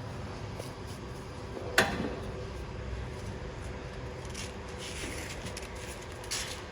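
One sharp knock about two seconds in, followed by a few short scraping or rubbing sounds, over a steady low hum.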